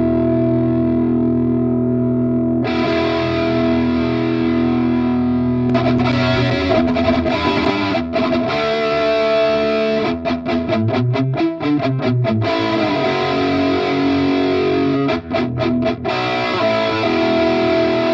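Electric guitar played through a Vox combo amplifier: held chords, then picked and strummed phrases with a choppy, stop-start stretch in the middle. The tone turns suddenly brighter about three seconds in.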